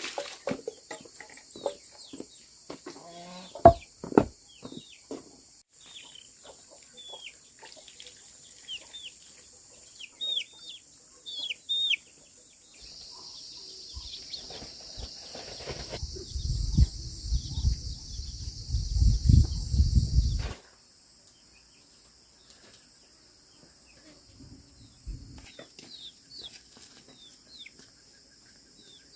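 Chickens clucking, with chicks peeping in short high downward chirps. There are scattered knocks in the first few seconds, and a loud low rumbling noise past the middle that stops abruptly.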